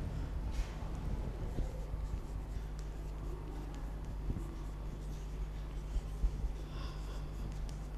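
Chalk scratching on a blackboard as words are written, in short irregular strokes with a few light clicks, over a steady low hum.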